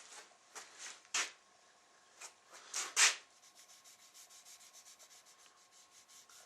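Release agent being rubbed onto a rifle's steel action: a few separate scraping strokes, the loudest about three seconds in, then a quick, even back-and-forth rubbing of about six strokes a second.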